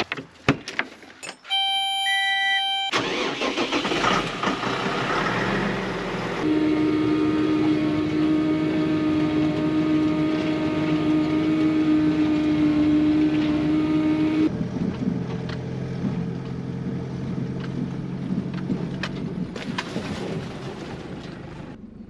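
A short electronic chime, then farm machinery running: a tractor engine driving a slasher as it mows thistles, heard from the cab with a steady whine over the engine for about eight seconds. A cut then brings a lower, steady engine hum.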